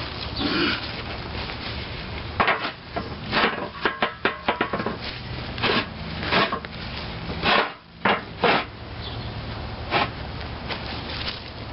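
A heavy cast-iron stationary engine block being shoved and scraped into place on a rusty metal base: a run of knocks and grinding scrapes, thickest between about two and nine seconds in.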